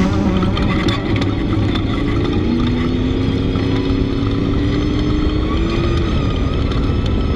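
Off-road race vehicle's engine running under load, its pitch climbing steadily for a few seconds as it accelerates, over a rough rumble with occasional knocks.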